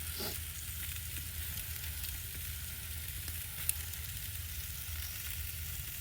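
Chorizo frying in a pot, rendering out its fat: a steady sizzle with small crackles and one sharp pop a little past halfway.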